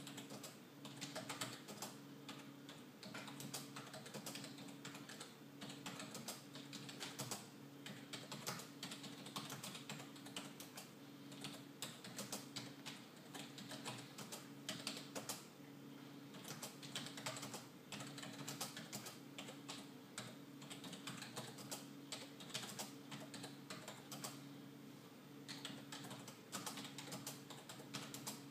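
Typing on a computer keyboard: dense, irregular clicks and taps, over a steady low hum that pulses about once a second.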